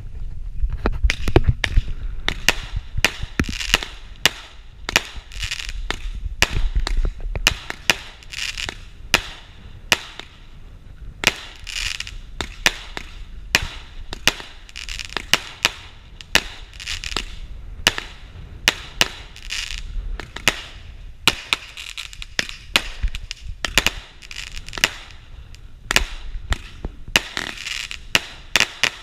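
A 36-shot consumer fireworks cake firing shot after shot in quick, uneven succession. Each sharp shot is followed by a brief crackling rush as the small star burst breaks.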